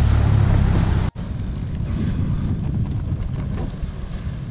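Boat running at speed, with wind buffeting the microphone and water rushing past the hull. About a second in the sound cuts off abruptly and gives way to a quieter, steady wind and water noise.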